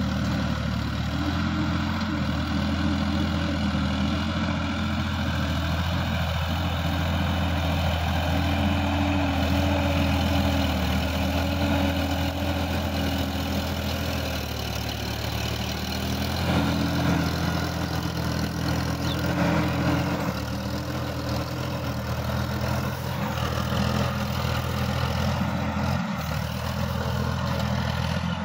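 Sonalika DI-50 RX Supreme tractor's diesel engine running steadily under load as it drives a rotavator through the soil. The engine note shifts slightly about halfway through, as the tractor turns.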